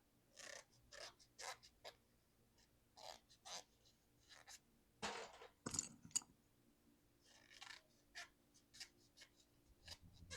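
Short, irregular scraping strokes from cleaning a mechanical keyboard, with a louder scrubbing stretch and two sharp clicks about five to six seconds in.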